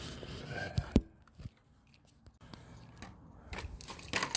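Handling noises: rustling and light knocks, with one sharp click about a second in and scattered clicks again near the end.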